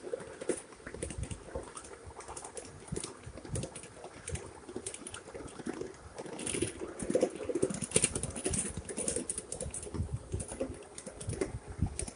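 Wheels of a ride-on 7.5-inch-gauge miniature train clicking and rattling irregularly over the rail joints, over a low rumble from the moving train.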